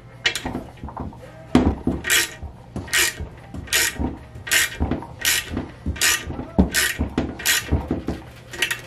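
Hand ratchet clicking in short bursts on each back-swing, in a steady rhythm of a little more than one stroke a second, with a few dull knocks between strokes. The bolts of a 727 transmission's bolt-in sprag are being run in by hand rather than with an impact or air ratchet.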